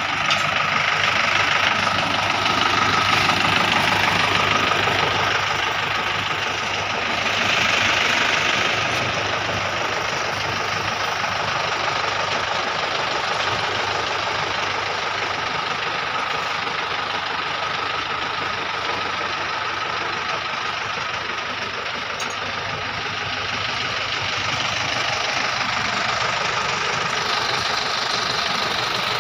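Engine of a locally built machine van running steadily at idle. Its level swells a little for a few seconds near the start and again around the eighth second.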